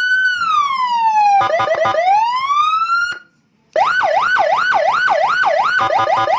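Senken electronic police-escort siren sounding through its tones: a slow wail that falls, a short burst of rapid blips, another rising wail, then it cuts off about three seconds in. After a short gap, a fast yelp starts, sweeping up and down about twice a second.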